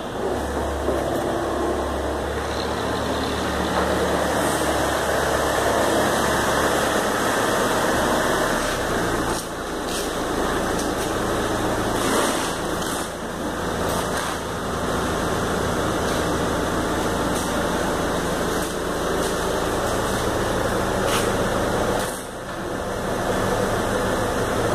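SUV engine idling steadily, with a few sharp knocks about ten seconds in and again near the end.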